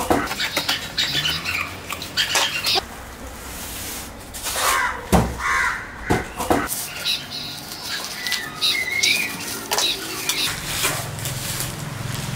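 Packing tape being sliced and ripped off a cardboard shipping box, the cardboard handled and plastic wrapping rustling, in a series of sharp tearing strokes. Birds call in the background.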